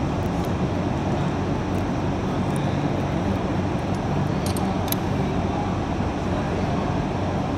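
Steady low machine hum of running shop machinery, with a couple of light metallic clicks from hand tools on the rocker-arm adjusters about four and a half seconds in.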